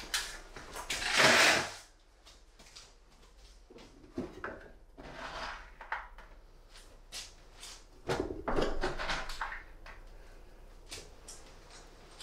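Handling noise from fitting steel drywall ceiling profiles and hangers: a scraping slide about a second in, then scattered clicks and knocks, and another run of scrapes and knocks around eight seconds in.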